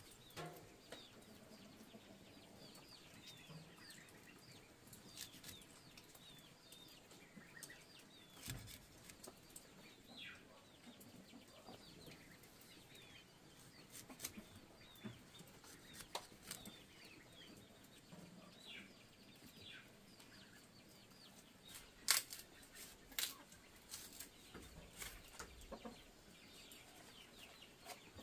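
Chickens clucking faintly, with many short high chirps falling in pitch scattered throughout, and a few sharp knocks in the last third.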